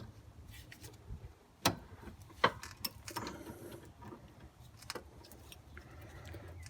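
Socket wrench turning out the freshly loosened 12 mm rear brake caliper bolt: a few scattered metallic clicks and clinks, over a faint steady low hum.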